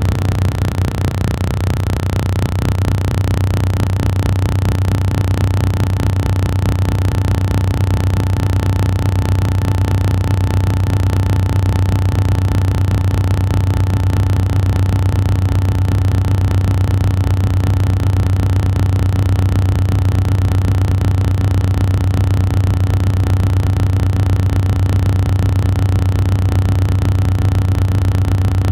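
A loud, steady low-pitched hum with fainter higher tones above it, unchanging throughout.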